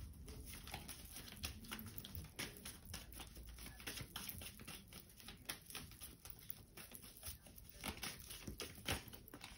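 A deck of oracle cards being handled and shuffled: faint, irregular clicks and rustles of card on card.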